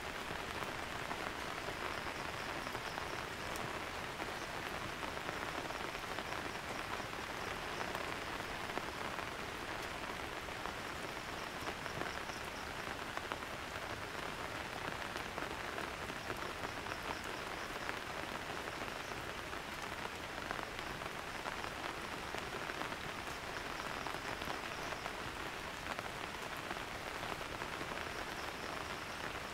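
Heavy rain falling steadily, a dense patter of drops on surfaces.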